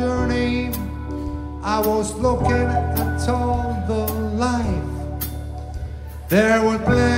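A live trio playing: acoustic guitar, keyboard bass and drum kit. A steady low bass note is held under pitched lines that bend up and down, with cymbal hits now and then and a louder swell near the end.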